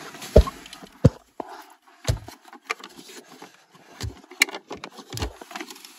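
Irregular knocks and thumps, with scraping between them, as a car's heater blower motor is tugged and wiggled to work it out of its housing under the dash. It is not coming free, probably hung up on a vent tube.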